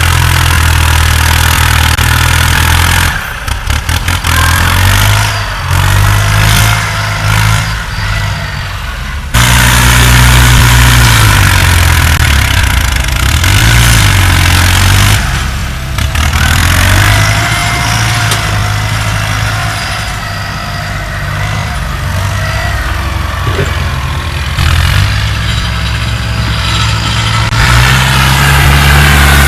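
Diesel engines of earthmoving machinery working under changing load, their pitch rising and falling, with a faint whine over them; the level jumps abruptly a few times.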